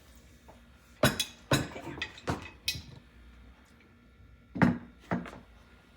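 Kitchen utensils and dishes being handled: a quick run of knocks and clinks, then two more a couple of seconds later.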